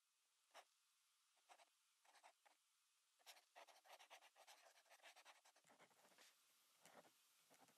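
Faint scratching of a pen sketching on paper: a few separate strokes at first, then a quicker run of short strokes about halfway through.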